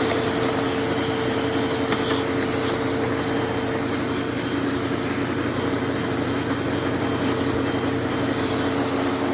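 Eureka The Boss Smart Vac upright vacuum running at full speed on its hose tool, its motor holding a steady whine.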